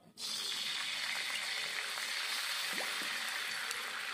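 Food frying in hot oil in a pan, a steady sizzle that starts suddenly just after the beginning.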